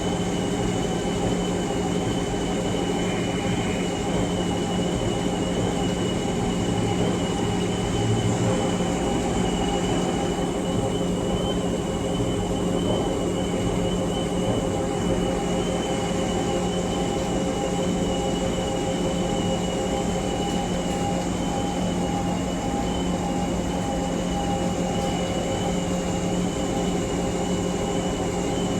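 Large coin-operated washing machine running: a steady, even mechanical hum with a faint high whine held throughout.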